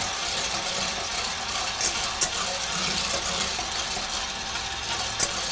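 Electric immersion blender running steadily in a skillet of hot melted butter as heavy cream is poured in: a steady motor whir with the liquid churning.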